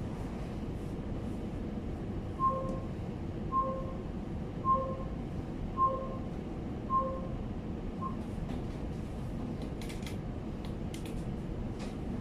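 Steady low machinery hum in a yacht's pilot house. About two seconds in comes a run of six short two-note electronic beeps, about a second apart.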